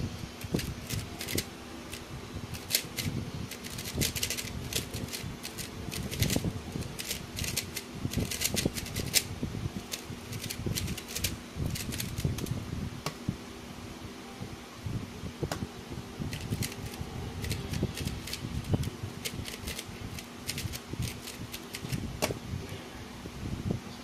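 A GuoGuan Yuexiao 3x3 speedcube being turned fast during a timed solve: quick runs of plastic clicks and clacks for about twelve seconds, a short pause, then more runs of turning clicks. A steady low hum runs underneath.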